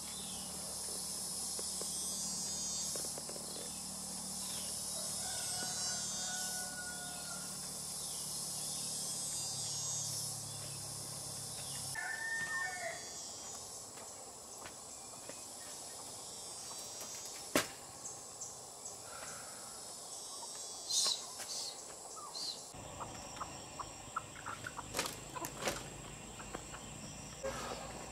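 Insects shrilling steadily in a dense high chorus, with a rooster crowing about halfway through. In the second half the insects are quieter and scattered sharp clicks and knocks come through.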